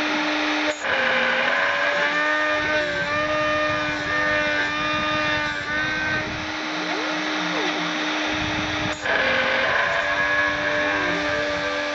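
Desktop CNC milling machine running: a steady spindle whine under stepper-motor tones that step and glide in pitch as the axes move. It dips briefly about a second in and again near the end.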